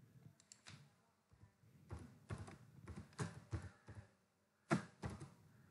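Faint keystrokes on a computer keyboard: a dozen or so irregular taps, with the sharpest one about three-quarters of the way through.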